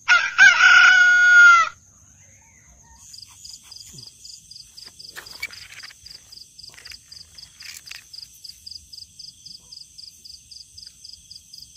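A rooster crows once, loudly, for about a second and a half. Then an insect chirps steadily at a high pitch, about four pulses a second.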